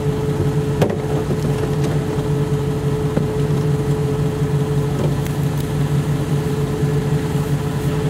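Mercedes G-Wagen's engine idling with a steady, even hum and no revving, a couple of faint clicks over it.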